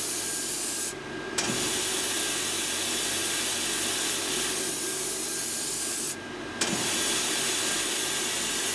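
Ultrasonic spray fluxer on an Electrovert Electra wave solder machine spraying: a steady hiss of air and flux spray. It cuts out briefly twice, about a second in and again about six seconds in.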